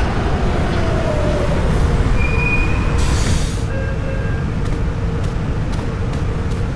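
Underground train pulling into a platform and stopping: a steady low rumble under a falling whine of the slowing train and its brakes. About three seconds in a short beep sounds and the doors open with a brief hiss, followed by a run of light clicks.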